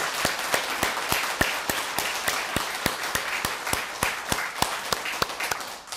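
Audience applauding: a hall full of people clapping, dying away near the end.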